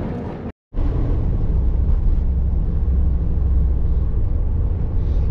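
Camper van driving along, heard from inside the cab: a steady low drone of engine and road noise. The sound cuts out briefly about half a second in, then comes back.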